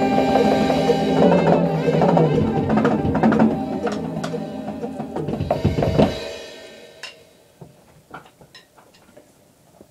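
Rock song with drums played along on a Roland TD-6KV electronic drum kit, ending on a final crash about six seconds in and dying away. Afterwards only a few light clicks are heard.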